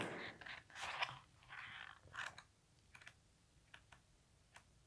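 Paper rustling as the pages of a small oracle-deck guidebook are handled and turned, soft rustles in the first couple of seconds, then a few light clicks and taps.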